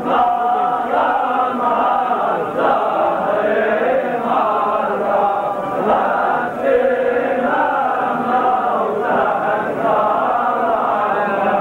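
Men's voices chanting a Lebanese zajal refrain together, a slow wavering sung melody.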